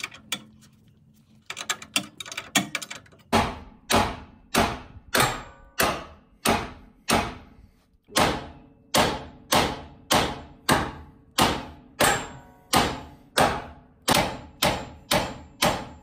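Hammer blows on steel, a steady run of nearly two sharp strikes a second with a short ring after each, driving at the drag link's tapered joint on the Jeep's pitman arm to knock it loose. A few lighter metal clicks come in the first three seconds, before the hammering starts.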